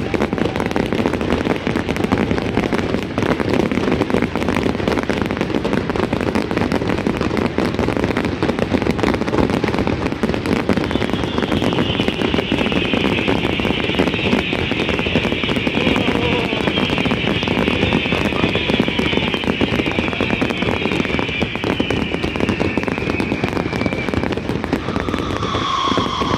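Fireworks display going off without pause: dense, rapid crackling and popping bursts. A high hiss joins about a third of the way in and fades out shortly before the end.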